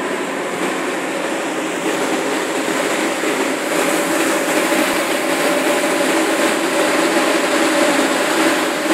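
Steady rushing of churned sea water between a ship's hull and a pilot boat running alongside, under a steady machinery hum. It grows a little louder about three and a half seconds in.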